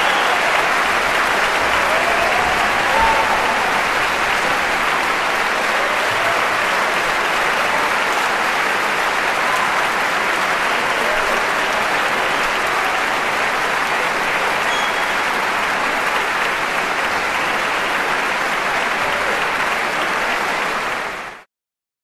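Audience applauding steadily, a dense even clapping that cuts off suddenly near the end.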